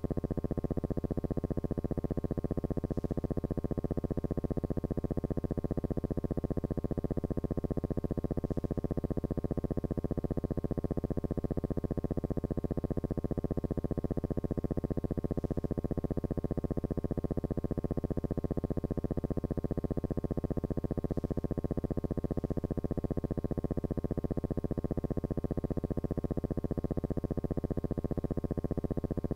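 Steady electrical buzzing hum with many overtones, its pitch and level unchanging: the hum of an old film's soundtrack with no recorded sound on it.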